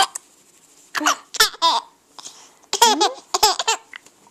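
Four-month-old baby with the hiccups giggling in two short runs of high-pitched giggles, one about a second in and another near the three-second mark.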